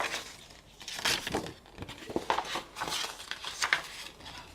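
Paper and plastic rustling and crinkling in irregular bursts, with a few sharper clicks, as a K-pop album's photo books and inclusions are handled.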